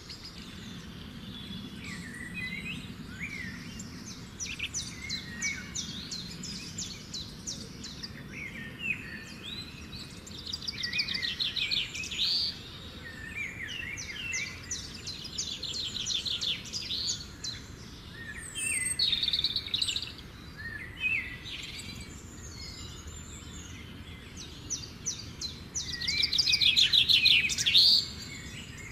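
Birdsong: several birds chirping and singing rapid trills in repeated bursts over a faint steady hiss, with the loudest trill near the end.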